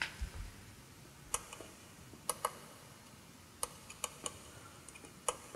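Irregular, faint clicks of small plastic control buttons on a Varytec Giga Bar HEX 3 LED bar, about eight presses, made while stepping through the menu to set a fade program and its speed. A soft low thump comes just at the start.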